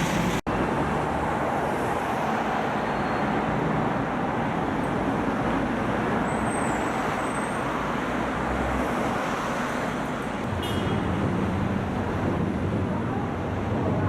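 Steady road traffic noise: cars and trucks running through a busy city intersection.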